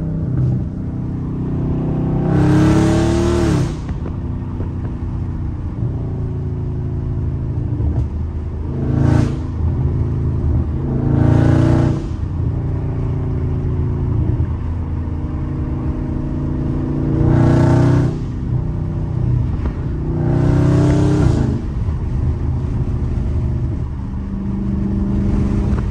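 Dodge Charger Scat Pack's 392 HEMI V8 heard from inside the cabin, cruising with its catalytic converters removed (catless, not straight-piped), so the exhaust drone is loud. About five times the driver gives it a short stab of throttle, and the exhaust swells into a louder, raspier burst for about a second before settling back.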